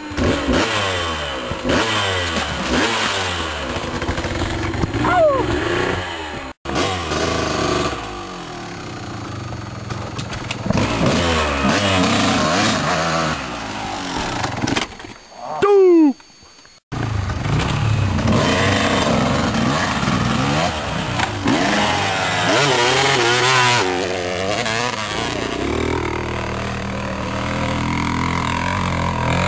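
Dirt bike engines revving up and down as riders pass one after another, each engine rising and falling in pitch as it accelerates and backs off. The sound breaks off abruptly a few times, with a brief loud burst just before a short gap about two-thirds of the way through.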